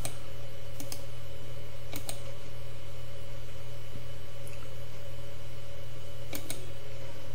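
A handful of sharp computer keyboard and mouse clicks over a steady low electrical hum.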